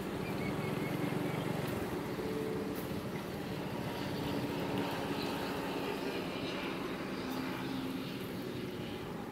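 A small engine drones steadily, with faint voices in the background.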